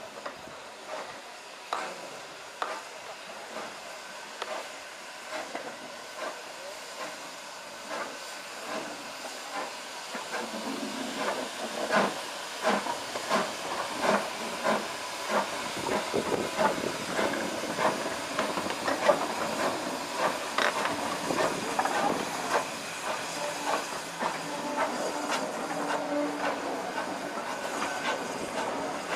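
Steam tank locomotive 47406, an LMS Fowler 3F 'Jinty' 0-6-0T, hissing steam as it works a train. Louder from about ten seconds in, with a run of sharp beats and knocks as it gets under way.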